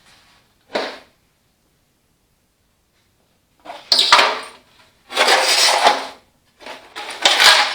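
Metal clattering and scraping from hand tools working on a tractor's sheet-metal fender. There is one short clank about a second in, then three rattling bursts of about a second each near the end.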